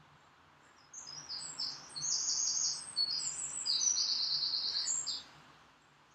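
A small songbird sings one song of fast, high trills, lasting about four seconds and starting about a second in.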